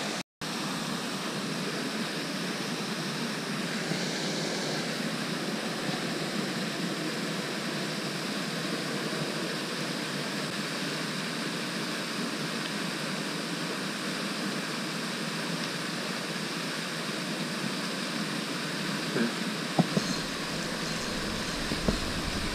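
Steady hiss of splashing water from the pond's spray fountains, with a few faint knocks near the end.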